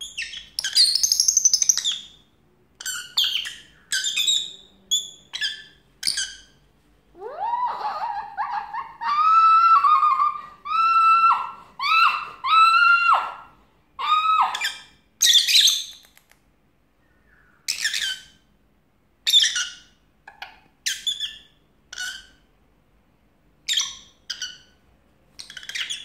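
Pet lovebird giving repeated sharp, high-pitched chirps and squawks in short bursts with gaps between. In the middle, a run of lower, steadier pitched calls lasts several seconds, rising in pitch at its start.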